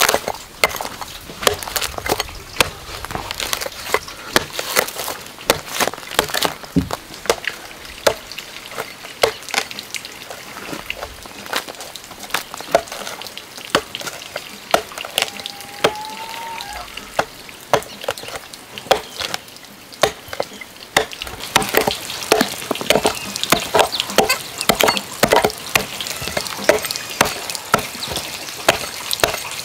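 A bladed hand tool chipping and scraping into a wooden log to hollow it out as a rice mortar: quick irregular strikes on wood and crackling scrapes of loose chips, busier and brighter in the last third.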